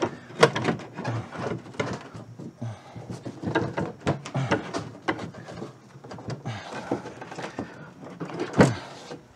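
Window glass and hardware being worked by hand inside a VW Beetle door shell: irregular knocks, clicks and scrapes of glass and metal against the sheet-steel door as the glass is fitted into its track, with one louder knock near the end.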